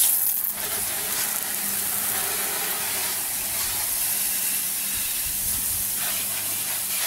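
Water jets hissing steadily from a PVC under-car washer wand fed by a garden hose, spraying under a vehicle and onto wet asphalt. The spray comes on suddenly at the start.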